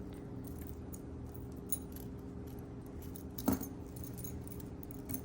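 Small pieces of metal jewelry clinking and jingling as they are handled, with a sharper clack about three and a half seconds in.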